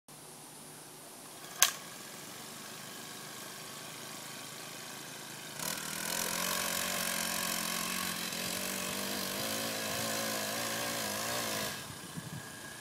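Small gas-powered garden tiller's engine running slowly, then throttled up about five and a half seconds in and running hard as it digs, its pitch wavering under load, before dropping back to a low idle near the end. A single sharp click about a second and a half in.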